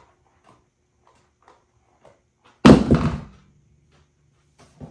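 A black patent-leather platform stiletto pump drops from a dangling foot and hits the hard floor once, with a loud clatter about two and a half seconds in.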